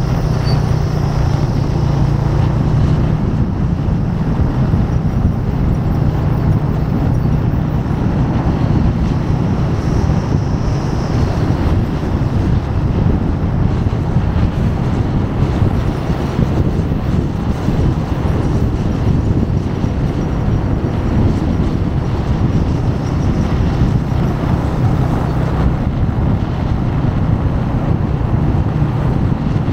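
Motorcycle engine running steadily at cruising speed, with wind rush and road noise from riding along a highway.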